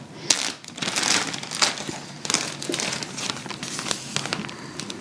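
Large plastic Ziploc bag crinkling as it is opened and a beef roast is slid into it: a string of irregular, crackly rustles.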